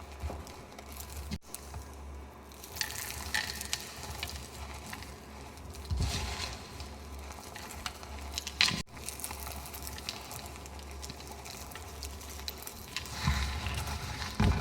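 Reformed gym chalk being crumbled and crushed: a fine, continuous crackle with scattered sharper crunches, the loudest about six seconds in, just before nine seconds and a little after thirteen seconds. A steady low hum runs underneath.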